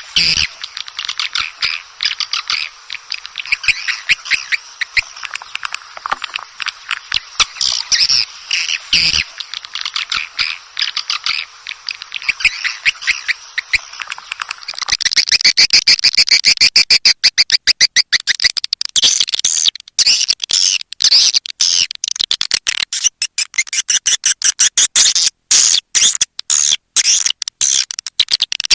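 Dense, rapid twittering chirps of edible-nest swiftlets, a swiftlet-house lure call. About halfway through it gets louder and more broken up, in quick separate bursts of chirps.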